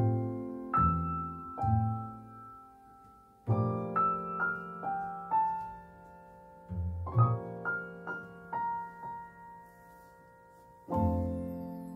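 Background music: a gentle piano piece, notes and chords struck in short phrases that ring out and fade, with brief lulls between phrases.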